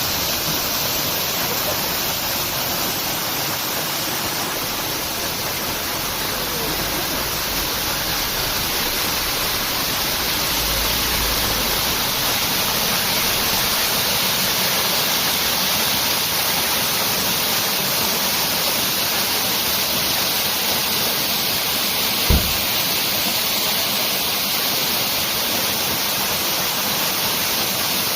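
Waterfall: a steady, heavy rush of falling water, with a single brief low thump about three-quarters of the way through.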